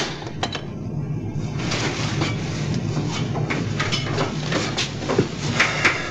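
Steady low machinery hum of a submarine's control room, with a rushing hiss coming in about a second and a half in and a few light clicks and knocks.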